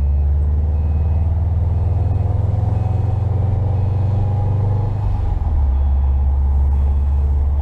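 2011 Subaru WRX's turbocharged flat-four engine running while under way, a steady low drone with a faint rising whine above it; about five seconds in the revs drop.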